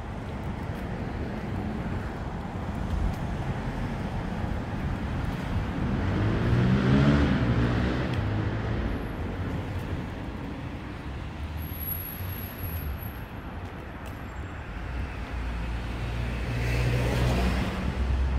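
City street traffic: a steady rumble of cars, with one car passing and its engine pitch rising as it accelerates about seven seconds in, and another passing near the end.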